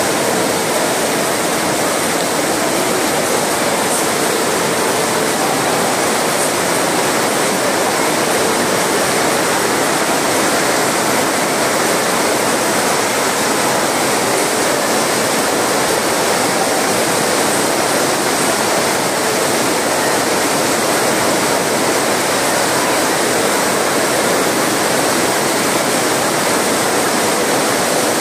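Heavy tropical rain pouring down in a steady, loud, unbroken hiss.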